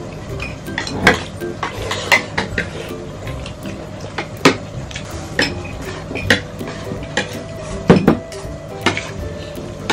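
Tableware clinking and knocking during a meal: a metal spoon against a glass jar, plates and bowls on the table, in irregular separate clicks. A heavier knock comes about eight seconds in.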